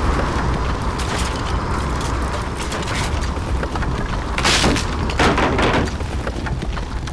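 Storm wind rumbling steadily, with two loud rushing gusts or crashes about four and a half and five seconds in.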